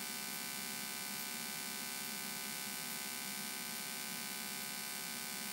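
Steady, even drone of a Cessna 172N's engine and propeller in cruise descent, heard faintly through the cockpit headset audio feed.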